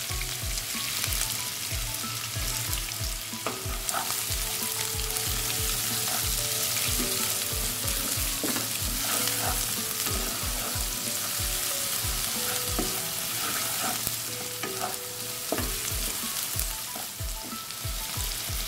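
Chopped onion sizzling steadily in a few spoonfuls of hot oil in a nonstick pan, stirred now and then with a slotted wooden spatula. This is the first stage of frying the onion until it turns translucent.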